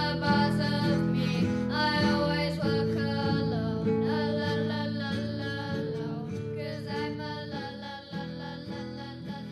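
Instrumental end of a song: guitar chords played in a regular rhythm over held notes, gradually fading out.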